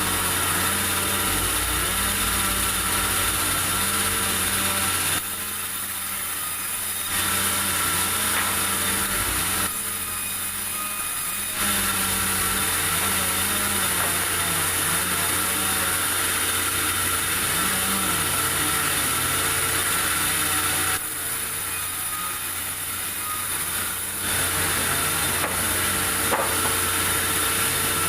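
Sawmill running and sawing through durian wood, a steady machine noise that drops quieter for a couple of seconds three times.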